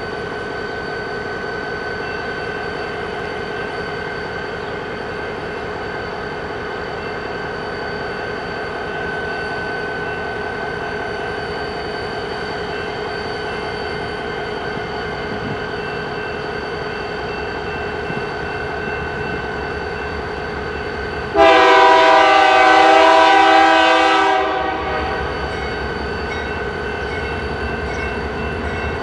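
A freight train running by with a steady rumble and a constant ringing tone. About three quarters of the way through, a diesel locomotive's air horn sounds a loud blast of about three seconds, and it sounds again right at the end.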